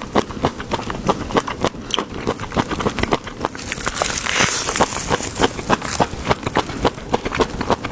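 Close-up chewing and biting of food, an irregular run of small crisp clicks several times a second, with a brief hiss about four seconds in.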